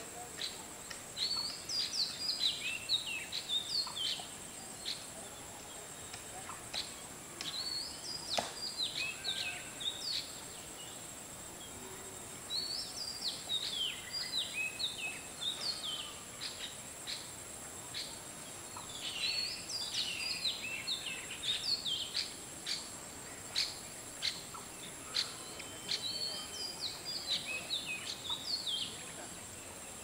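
Bee-eaters calling in bouts of quick, high chirping notes, five bursts a few seconds apart with short lulls between.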